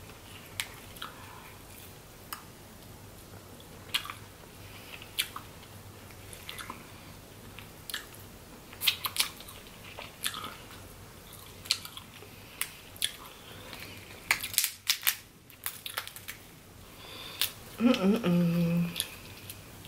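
Close-up eating sounds: wet chewing and lip smacks with scattered sharp clicks and cracks of crab-leg shells being broken open, and a dense run of cracks a little past the middle.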